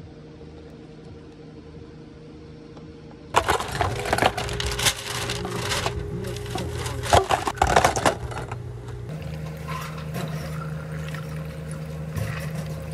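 Ice cubes clattering into clear plastic cups from a metal ice scoop: a burst of loud rattling that starts a few seconds in and lasts about five seconds, over a low steady hum. After it, water poured from a pitcher over the ice in the cups.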